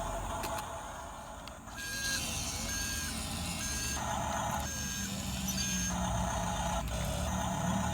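RC vehicle's electronic reversing beeper, sounding in evenly spaced beeps from about two seconds in, over the low running noise of the models' motors.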